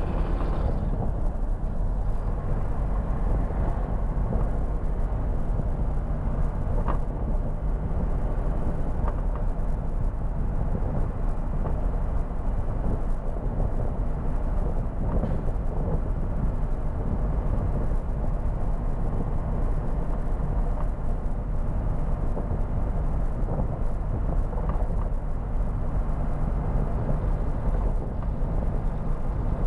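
Mercedes-Benz Atego truck's diesel engine and road noise heard inside the cab while cruising at a steady speed, a constant low rumble.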